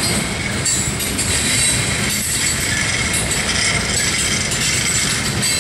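Freight train cars rolling past at close range: a steady rumble and rattle of steel wheels on rail, with faint high-pitched ringing tones over it.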